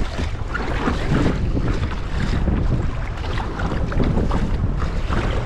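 Wind buffeting the microphone over choppy sea, with water splashing irregularly against a sea kayak's hull and paddle blades as it is paddled through the chop.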